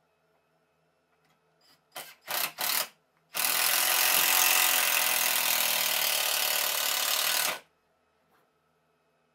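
Cordless drill drilling into a block of wood: three short trigger pulls about two seconds in, then about four seconds of steady drilling that stops suddenly.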